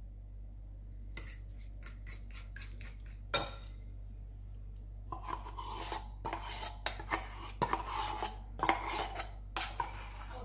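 A metal spoon clinks and scrapes against a ceramic bowl and the condensed milk tin while condensed milk is poured and stirred into beaten eggs. A quick run of strokes comes about a second in and a single sharp clink near the middle, then steady repeated scraping strokes from about halfway on.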